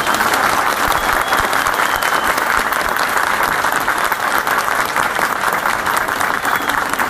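Large crowd of spectators applauding steadily, a dense clatter of many hands clapping.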